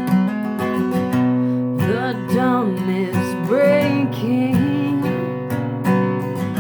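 Acoustic guitar strumming chords, with a solo voice singing a phrase over it from about two to five seconds in.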